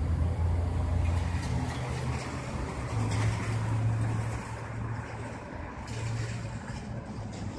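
A road vehicle's engine running with a low, steady hum that shifts up a little in pitch about three seconds in, over a wash of traffic noise.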